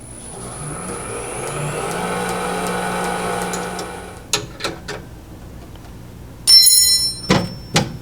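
Lathe drive motor and belt rollers spinning up, running briefly and coasting down over about four seconds, with a faint high whine over the hum. A few light clicks follow, then a sharp metallic clank with ringing tones and two knocks near the end.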